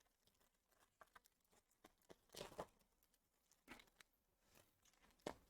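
Faint rustles and flicks of trading cards being handled, with a brief cluster about two and a half seconds in and a sharp flick near the end.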